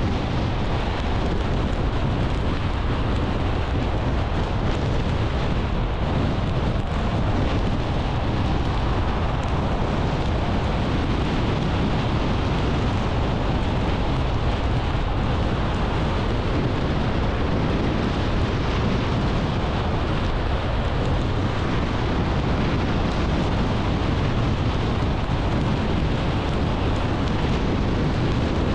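Steady rumble of road and wind noise from a car driving along at speed, heaviest at the low end and unchanging throughout.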